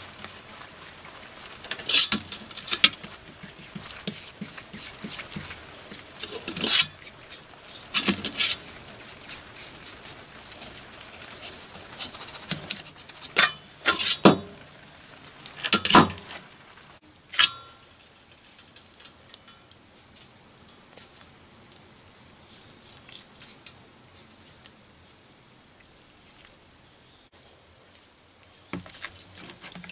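Skandia hatchet head knocking and scraping against a metal platter as it is handled and turned over while coated with rust remover: a string of sharp metallic clinks, then quieter handling with a few small knocks near the end.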